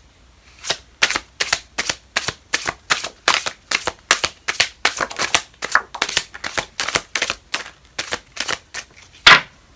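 A deck of tarot cards being shuffled by hand: a quick run of short card slaps, about three a second, with one sharper slap near the end.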